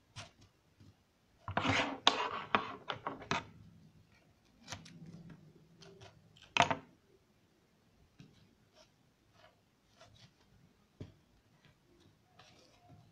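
Tape being pulled and handled off a roll, with rustling on cardboard and scattered clicks and taps from hand-work at a table. The longest stretch of tearing noise lasts about two seconds, starting a second and a half in, and there is one sharp click near the middle.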